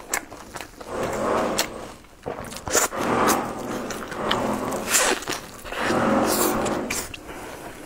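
Close-miked eating sounds: biting into and chewing a crisp, filled flatbread, with sharp crunchy crackles between the chewing.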